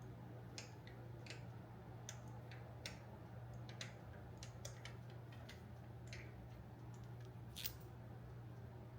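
Quiet, irregular light clicks and taps, about a dozen scattered through, the sharpest near the end, over a steady low hum.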